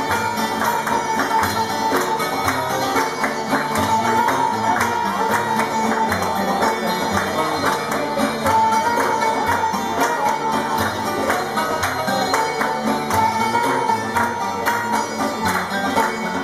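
Live band playing an instrumental passage: busy, steady percussion under a melody instrument holding long notes, with no singing.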